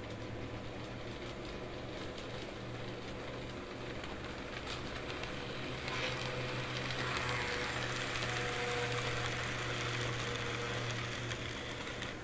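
Model train running on the layout's track: the steady hum of its small electric motor and the rattle of its wheels on the rails, getting louder as it passes close about six seconds in and dropping back near the end.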